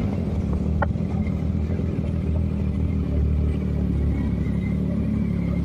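Yamaha MT-09 motorcycle's three-cylinder engine running steadily while riding, a low, even hum.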